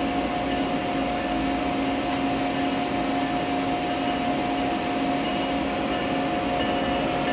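Steady electric hum and rumble of trains on an electrified main line, with faint high whining tones joining about five seconds in.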